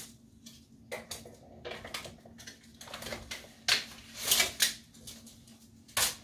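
A heavy-duty tape measure being handled against fridge shelves and the things on them: a series of irregular clicks, rattles and knocks, the loudest around four seconds in and another just before the end.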